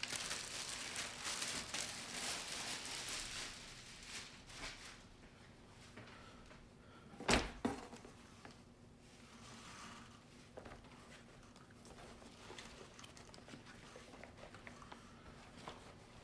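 Plastic packaging crinkling as a leather apron is taken out and unfolded, busiest in the first few seconds. Quieter rustling of the leather follows, with a single thump about seven seconds in.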